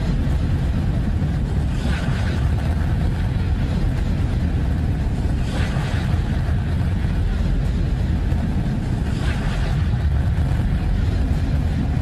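Deep, continuous rumbling drone with a hissing, whooshing swell three times, about every three and a half seconds. It is the sonified 'sound' of Neptune's moon Triton, spacecraft data turned into audio.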